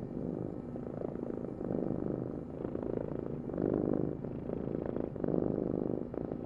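A domestic cat purring continuously, a fine rapid rumble that swells and eases in waves about every two seconds.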